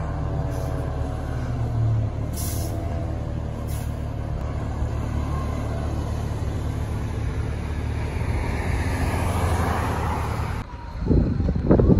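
Low, steady engine noise of fire trucks driving through traffic. Near the end a car's road noise swells as it passes close, stops abruptly, and wind buffets the microphone.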